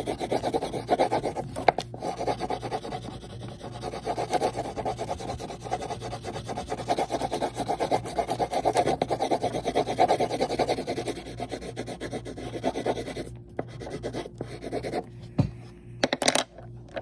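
Coloured pencil scribbling on paper in rapid back-and-forth strokes, a dense rubbing sound that stops about thirteen seconds in. A single knock follows a couple of seconds later.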